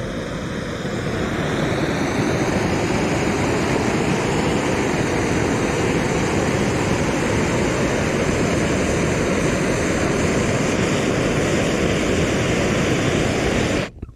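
Handheld blowtorch burning with a loud, steady rush of flame, swelling a little over the first couple of seconds and cutting off abruptly near the end.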